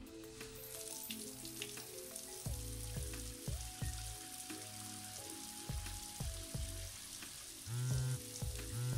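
Shower running, a steady spray hiss, over soft background music. Near the end a mobile phone starts ringing in short repeated pulses.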